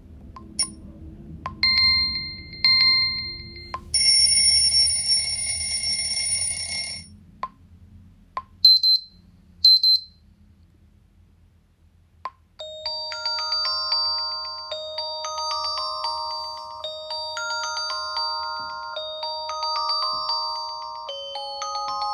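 Xiaomi Redmi 9A ringtone and alarm tones previewed one after another: two short electronic beeps, then a buzzing alarm tone for about three seconds, then two short, loud high beeps. From about twelve seconds in, a melodic marimba-like tune plays.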